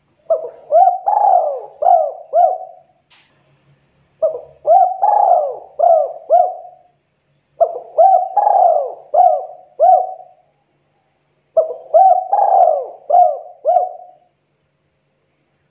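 Spotted dove (tekukur) cooing in its 'kuk 2' song style. It gives four phrases, each a quick run of about five rolling coos, with pauses of a second or more between them.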